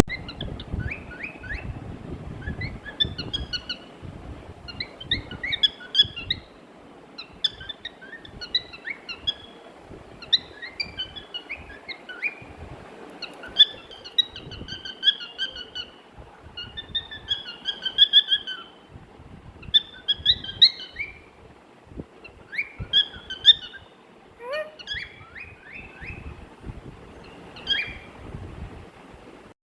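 Young pet cockatiel chirping and giving short whistled calls in quick clusters with brief pauses; a few calls slide sharply downward.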